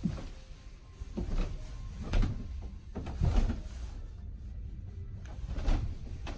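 Footsteps on old wooden floorboards: a handful of dull, low thumps at uneven spacing, about a second apart.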